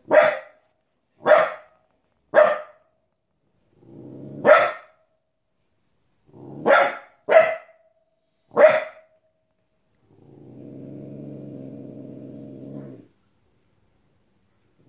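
Border Collie puppy barking at the TV: seven short, sharp barks over about nine seconds, some led in by a low growl. Then a steady low growl of about three seconds with no bark after it.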